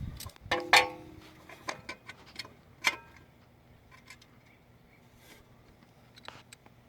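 Hand tools and bolts clinking against metal while working on an engine's valve cover. One louder ringing metal clink comes about a second in and another sharp click about three seconds in, then only a few faint ticks.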